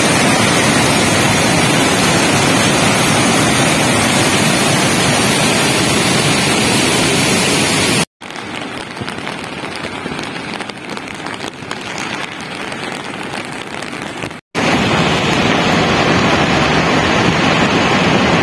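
Muddy floodwater torrent rushing over boulders: a loud, steady noise. About eight seconds in it breaks off briefly and comes back quieter for some six seconds, then breaks off again and returns loud.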